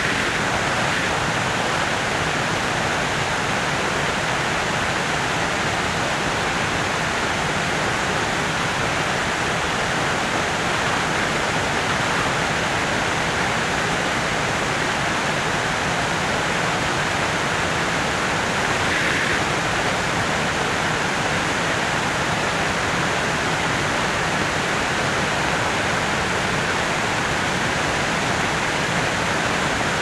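Steady rushing wind noise of a car driving along at speed.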